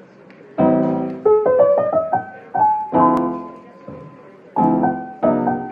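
Intro music on piano: struck chords that fade away, with short melody notes between them, starting about half a second in.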